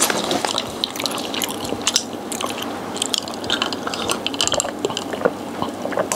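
Close-up chewing of fried food, a rapid irregular run of crunches and wet mouth clicks.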